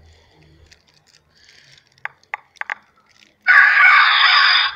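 An electronic game caller playing a recorded animal call through its horn speakers. It starts suddenly and very loud, harsh and noisy, about three and a half seconds in, after a few sharp clicks.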